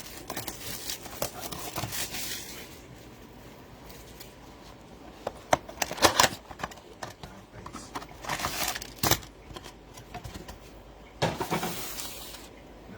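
Trading card packaging being handled and opened: sharp clicks and knocks of cardboard, with several short bursts of crinkling wrapper, the loudest clicks about halfway through.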